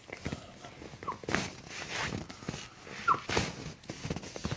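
Soft handling and rustling noises as the foot and leg are gently pulled, with two short squeaks about a second in and about three seconds in.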